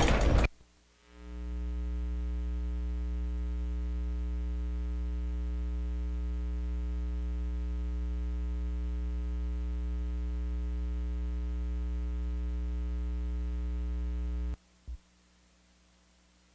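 Steady electrical mains hum on the audio feed, a low buzz with many overtones. It swells in about a second in after a brief burst of hiss, then cuts off abruptly near the end, followed by a single click.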